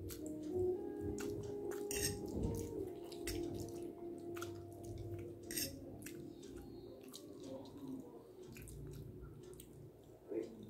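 Quiet eating sounds: a metal fork clicking against a plate and chewing of noodles, over faint steady low tones in the background.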